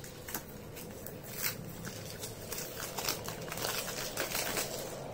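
Fingers opening a small cardboard lipstick box: a run of light, irregular clicks and rustles of paperboard that grows busier after about a second.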